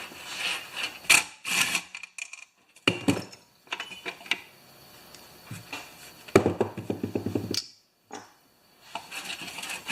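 Hand-handling of an old Honda HR214-style plastic recoil starter assembly: clicks and knocks of plastic parts, with a quick rattling run about six seconds in.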